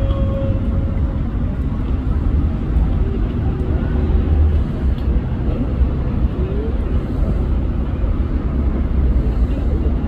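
Steady, loud low rumble of outdoor background noise, with nothing distinct standing out above it.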